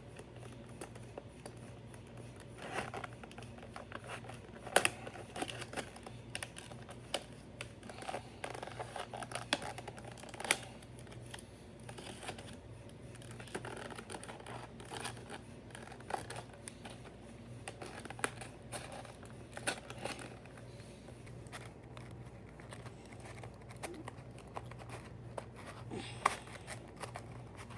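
Cardboard and plastic packaging being handled and pulled open, crinkling and scratching, with scattered sharp clicks and taps as a model locomotive is worked out of its box.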